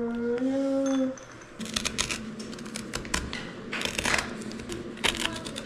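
A metal spoon scraping seeds and stringy pulp out of a halved butternut squash, in a series of short scrapes and clicks. Held notes of background music stop about a second in.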